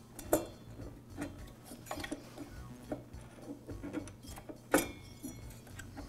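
Metal engine cylinder of a two-stroke blower engine clicking and knocking against the piston and crankcase as it is turned by hand and worked loose: a handful of sharp clicks, the loudest just after the start, with lighter clinks between.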